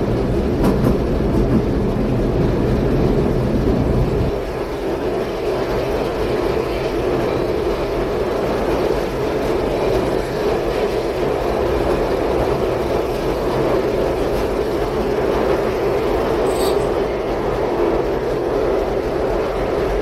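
Inside a running passenger train carriage: the steady rumble and rattle of the car rolling along the track. The low rumble drops slightly about four seconds in.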